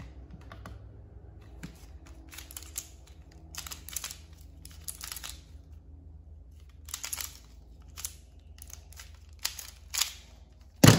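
Qiyi MS pyraminx being turned fast by hand in a speedsolve: irregular bursts of quick plastic clicking and clacking, with one loud knock near the end.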